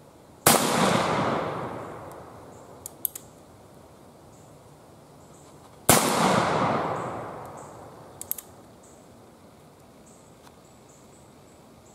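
Two shots from a Pietta 1858 Remington black powder percussion revolver, about five and a half seconds apart. Each is a sharp bang followed by a long echo that fades over about two seconds, with a couple of faint clicks between the shots.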